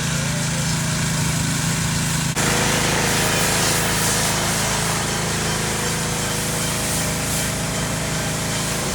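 A pressure washer's small engine running steadily; about two and a half seconds in, the spray starts with a loud hiss that carries on over the engine.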